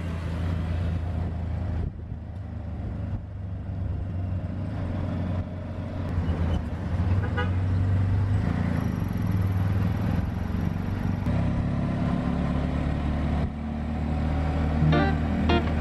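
Auto-rickshaw engine running steadily while driving through city traffic, heard from inside the passenger cab, with road and traffic noise around it.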